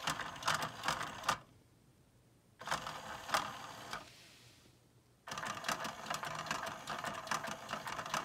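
Pounce electronic cat toy running on its second speed setting: its small motor driving the lure around the plastic track with a fast rattling, clicking clatter. It runs in spurts, stopping twice for about a second before starting again.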